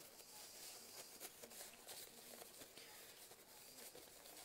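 Faint rubbing and rustling of a round blending brush's bristles being wiped on a cloth to clean off Distress Oxide ink.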